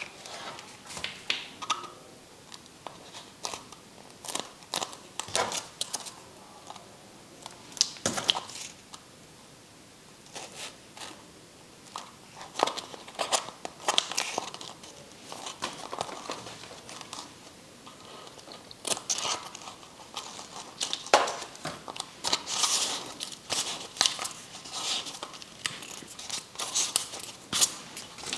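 Hands working craft materials: irregular crinkles, rustles and small clicks of paper, foam sheet and a plastic cup being handled, cut and fitted by hand.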